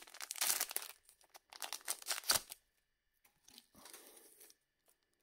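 Trading-card booster pack wrapper being torn open and crinkled, in two rustling bursts with a sharp crackle near the end of the second. A fainter rustle follows as the cards are slid out of the pack.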